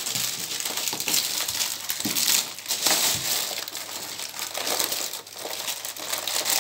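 Crinkly plastic and foil wrapping rustling and crackling as sweet-filled gift stockings are handled and rummaged through.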